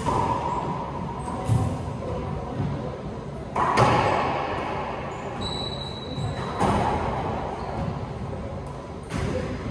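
Racquetball rally: the hollow rubber ball cracking off strings and the court walls every second or two, each hit ringing in the enclosed court.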